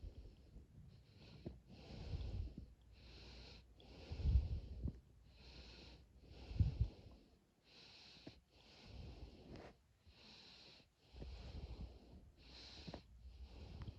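A sleeping person who snores and has sleep apnea, breathing in quick, noisy, irregular breaths about once a second instead of steady snoring, with two louder snorts around four and six and a half seconds in.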